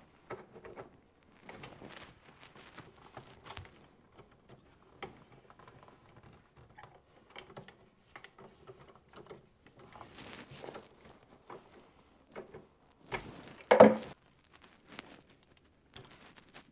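Scattered small clicks, taps and knocks of hands handling parts and tools while mounting and wiring an under-cabinet light power supply, with one louder clatter about 13 seconds in.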